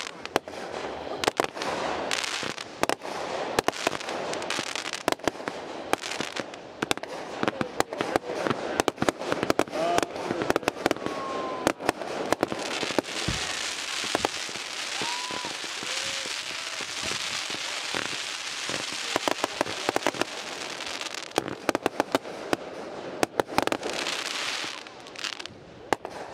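Consumer aerial fireworks going off in quick succession: a dense string of sharp bangs over continuous crackling, thinning out near the end.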